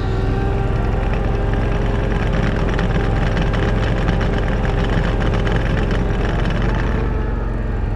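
Walker riding mower's Kohler engine running at a steady speed, its pitch holding nearly constant.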